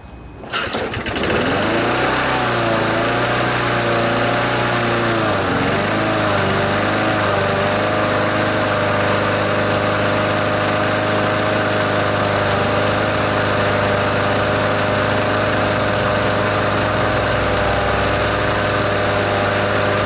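Briggs & Stratton single-cylinder lawnmower engine on a Troy-Bilt push mower catches about half a second in and keeps running. Its speed wavers for a few seconds, then settles to a steady run, with the governor spring eased to bring down the revs, which had been too high.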